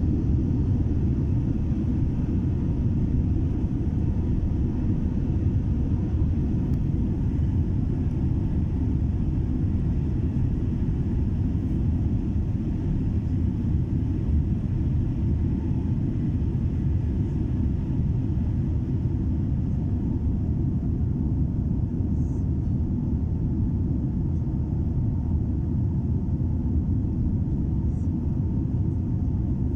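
Boeing 787 Dreamliner jet airliner during takeoff, heard as a steady low rumble that holds even with no rise or fall.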